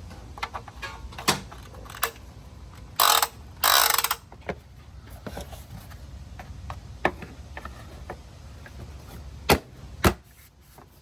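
Handling noise from working on the car: scattered clicks and knocks, two short scraping rustles about three seconds in, and two sharp knocks near the end.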